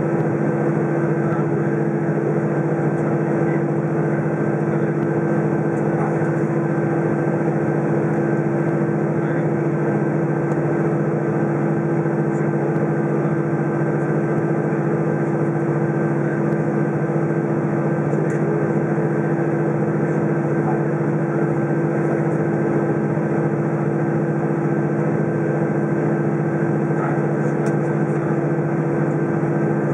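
Steady cabin drone of an Airbus A320 on the ground with its engines at idle, heard from inside the cabin: an even rumble with a few held humming tones in it.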